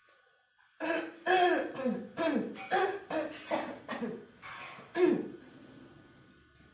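A person coughing repeatedly: a fit of about ten short, throaty coughs over some four seconds, starting about a second in.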